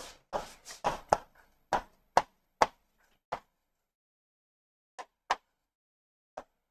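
Writing on a board: the writing tip taps and strikes against the board in short, sharp ticks. About nine come bunched together in the first three and a half seconds, then three more near the end.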